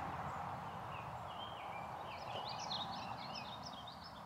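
A bird singing a faint, quick warbling song over steady outdoor background noise.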